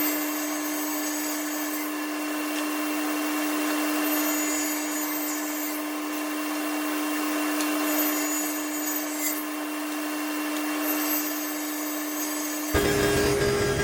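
A power tool cuts a 3/8-inch dado groove along the edge of a board. Its motor runs at one even pitch over a steady cutting noise.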